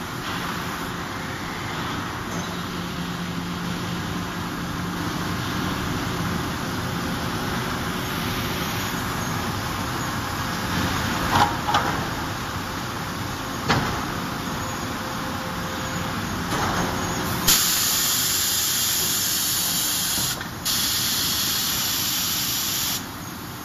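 Electro-hydraulic single-arm C-frame forging hammer working hot steel over a steady shop din, landing a handful of sharp blows. Then a loud hissing spray at the dies runs for about five seconds, with a brief break in the middle.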